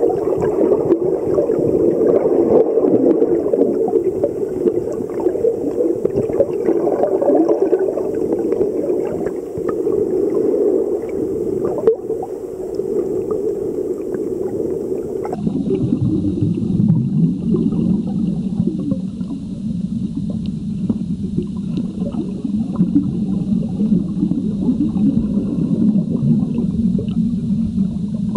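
Underwater camera sound: a steady, muffled low rumble of water heard through the camera's waterproof housing. About fifteen seconds in it changes abruptly to a deeper rumble, where the footage is cut.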